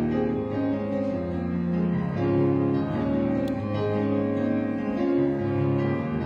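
Slow instrumental keyboard music, held chords changing about once a second.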